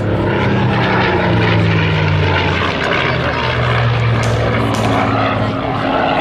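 Propeller-driven warbird with Rolls-Royce Merlin piston engines flying past: a loud, steady low drone whose pitch shifts a few times during the pass.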